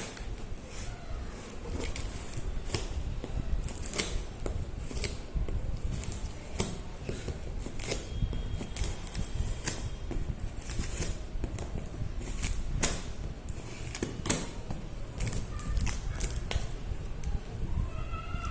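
Cardboard carton being opened by hand: irregular clicks, scrapes and rustles of cardboard and packing being handled.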